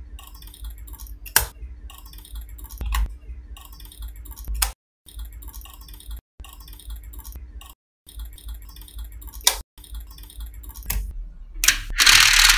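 Small neodymium magnetic balls clicking rapidly into place as a chain of them is laid onto a slab of balls, with a few louder snaps. Near the end comes a loud scrape of a plastic sheet sliding under the magnet slab.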